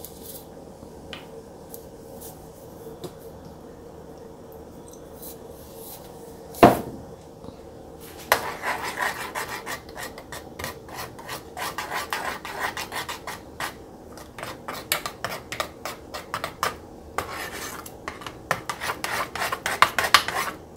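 Metal spoon stirring thick barbecue sauce in a small nonstick saucepan, scraping the pan in quick repeated strokes that start about eight seconds in. A little before the stirring starts there is one sharp knock, the loudest sound.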